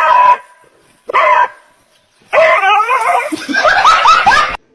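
A dog gives two short barks, then a long string of warbling yips and whines that bend up and down in pitch, stopping abruptly near the end.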